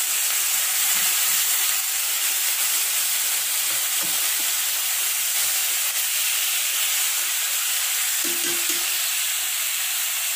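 Soy-marinated pork pieces sizzling in hot oil in a steel wok, a steady frying hiss as the meat goes in to sear.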